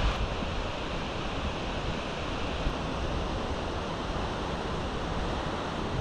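Steady rushing roar of a large waterfall, with light wind buffeting on the microphone.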